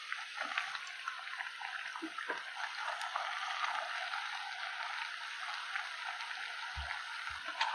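Onion bondas (gram-flour and idli-batter fritters) deep-frying in hot oil in a kadai, giving a steady crackling sizzle full of tiny pops. Two dull low knocks come near the end.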